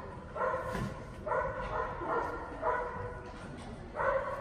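A dog barking repeatedly, short barks of the same pitch coming about every half second to second, with a pause of about a second before the last.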